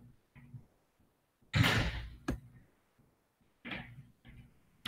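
A single heavy thump that dies away over about half a second, followed by a sharp click, then a few fainter short knocks.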